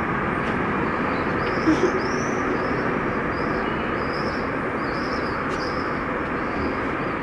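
A steady rushing background noise, with a small bird chirping over it in short high notes about twice a second.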